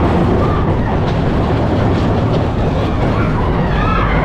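Big Thunder Mountain Railroad mine train roller coaster running fast along its track: a loud, steady rumble of the wheels on the rails and rushing air, seen from the front car.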